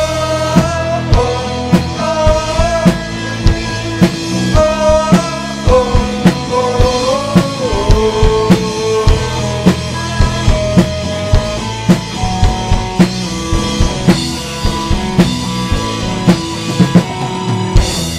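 Live rock band playing an instrumental passage: drum kit keeping a steady beat under bass and chords, with a melodic lead line of held and bending notes on top.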